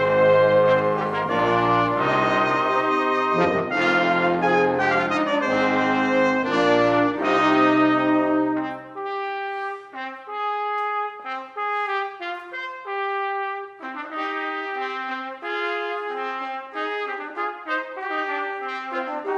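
Live wind and brass ensemble playing contemporary concert music. For about the first nine seconds the full band plays with low brass underneath; then the low instruments drop out and a thinner, lighter passage of short separate mid-range notes carries on.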